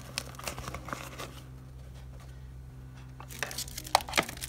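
Rustling and crinkling of a polyester fabric organizer bag being handled, with scattered small clicks; it goes quieter in the middle, then picks up again with a sharp tick about four seconds in.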